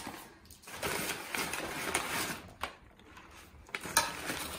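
Brown kraft packing paper rustling and crinkling as a cardboard delivery box is unpacked by hand, with a sharp knock about four seconds in.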